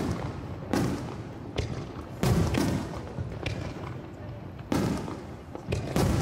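Aerial firework shells bursting overhead: a run of sharp booms at irregular intervals, about eight in six seconds, some louder than others, each trailing off in a rumbling echo.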